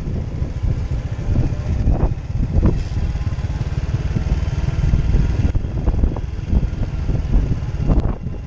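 Wind buffeting the microphone in a loud, choppy rumble on a Honda Innova 125 cc motorcycle riding downhill, with its small single-cylinder engine running underneath.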